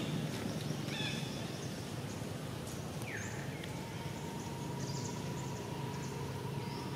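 Outdoor ambience in the trees with a few short, high animal chirps and calls, including one call that falls in pitch about three seconds in. A thin steady tone comes in over the second half.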